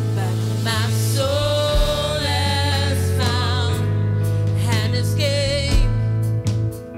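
Gospel worship song: a singer's voice with vibrato over a steady, sustained low accompaniment, dipping briefly near the end.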